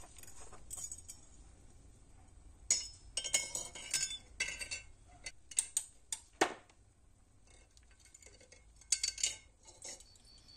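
A metal tool and small metal parts clinking against a glass jar in scattered clusters of sharp clinks, with one duller knock about two-thirds of the way in.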